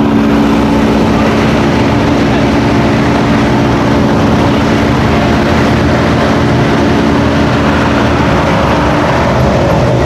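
A car engine running at a steady idle, a loud, even drone whose tone shifts about eight and a half seconds in.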